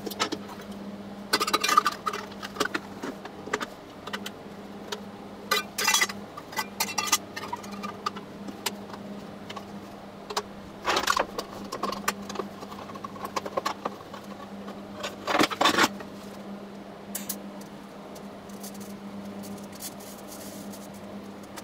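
TIG welding torch being handled and reassembled on a steel bench: irregular clicks, clinks and rattles of the torch's small metal and ceramic parts, in short clusters, over a steady low hum.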